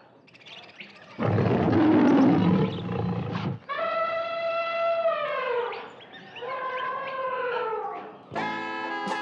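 Sound effects for an animated studio logo: a loud rushing roar for about two seconds, then two long held tones, each sliding down in pitch at its end. Music with plucked notes starts near the end.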